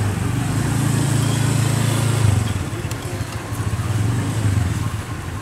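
Diesel-electric locomotive engine running with a deep, steady throb as the train rolls slowly in. It swells about two seconds in and again near the end.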